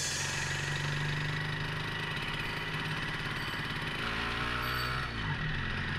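Motorcycle engine running with a steady low throb. Its pitch rises briefly about four seconds in as the bike pulls away.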